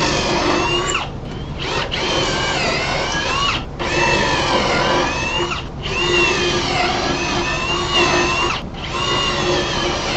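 Cordless drill driving pocket-hole screws into a wooden cabinet. The motor whines in runs of about two seconds with brief pauses between them, its pitch wavering as each screw goes in.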